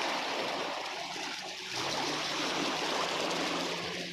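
Small waves washing over seaweed-covered shore rocks, the water rushing and trickling back, swelling a little about two seconds in.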